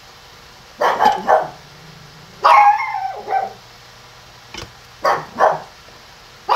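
Dogs barking in short bursts: a quick run of barks about a second in, a longer drawn-out bark near three seconds, then a couple more barks and one at the end.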